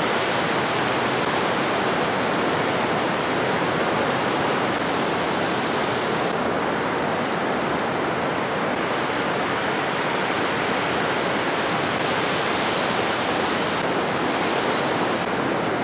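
Ocean surf: a steady wash of breaking waves with no separate crashes standing out. Its hiss changes abruptly a few times.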